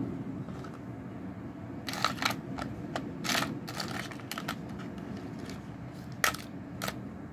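Scattered light clicks and clinks of small hard items being picked through in a plastic parts box, about six in all, over a steady low hum.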